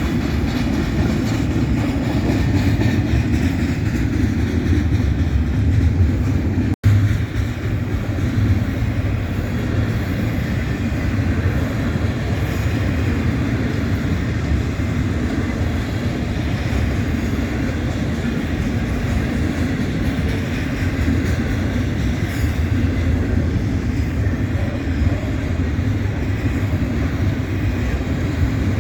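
A freight train passing, with a steady rumble of its cars rolling on the rails and a brief break in the sound about seven seconds in.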